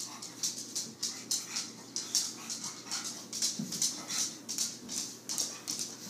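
Pug making a quick, steady run of short, hissy huffs, about three a second, as it spins round on a rug.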